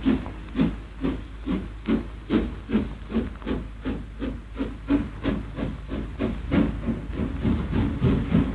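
LMS Princess Royal class steam locomotive working, its exhaust chuffing in a steady hissing rhythm of about two and a half beats a second.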